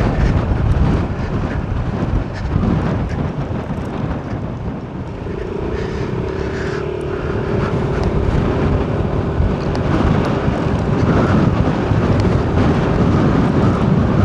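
A car driving: steady road and wind noise. A steady mid-pitched hum comes in about five seconds in and holds.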